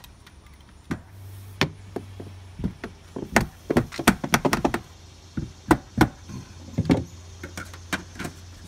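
Irregular clicks, taps and knocks as a pet-door frame is handled and clamped into an exterior door, the clatter busiest in the middle, over a steady low hum.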